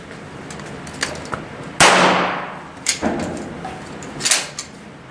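A single handgun shot about two seconds in, a sharp crack with a long echoing decay. Two fainter sharp knocks follow about a second apart.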